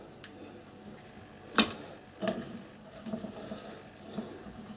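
A few soft knocks and one sharp click as raw potato chips go into a wire fryer basket sitting in fat that has only just been switched on and is not yet hot enough to bubble or sizzle.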